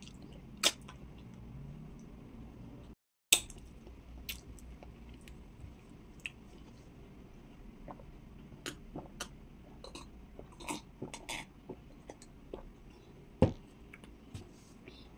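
Close-miked eating sounds of a person eating amala and okra soup with her fingers: chewing and scattered short mouth clicks. There is a brief drop to silence about three seconds in and one sharper click near the end.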